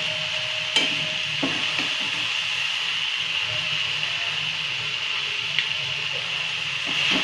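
A metal spoon scrapes and clinks against the kadhai as the dried-fish bhaji is ladled into a bowl. There are a few sharp clinks, about a second in and again near the end, over a steady sizzling hiss from the hot pan.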